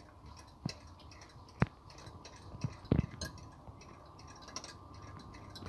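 Spoon stirring a creamy liquid in a small glass cup, clinking against the glass a few times, most sharply about a second and a half in and again about three seconds in.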